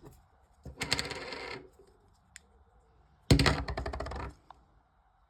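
Small metal scrap parts from a dismantled microwave clattering as they are handled or dropped together, in two rattling bursts of about a second each.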